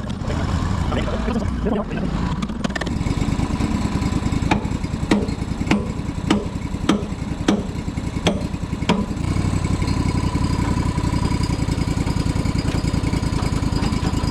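An engine idling steadily. About halfway through, a run of about eight sharp knocks comes a little over half a second apart.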